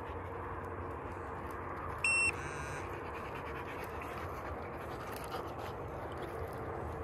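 A short, loud electronic beep about two seconds in, followed by fainter trailing tones, over steady outdoor noise. Light scuffs and clicks of steps and paws on stony ground come in the second half.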